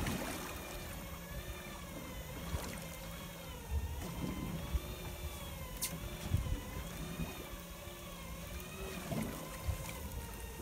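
Electric fishing reel winding in a hooked fish: a motor whine whose pitch wavers up and down about once a second as the fish's head-shaking knocks change the load on the line, over a low boat rumble and water noise.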